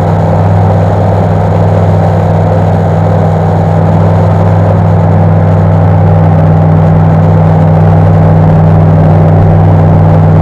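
Flight Design CTSW light aircraft heard from inside the cabin: its Rotax 912 four-cylinder engine and propeller drone steadily at cruise power, with a deep, even hum that grows slightly louder partway through.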